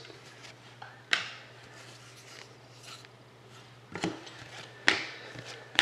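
Hockey trading cards being handled and slid about on a table: faint rubbing with a few short sharp taps, over a low steady hum.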